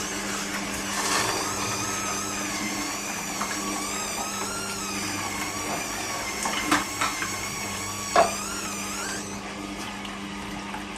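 Kuvings cold-press slow juicer running: a steady motor hum with a wavering high whine, and a few sharp cracks about two-thirds of the way through. The whine drops away near the end.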